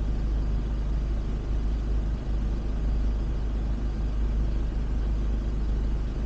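Steady, deep rumble of a van on the move: engine and road noise heard from inside the cabin.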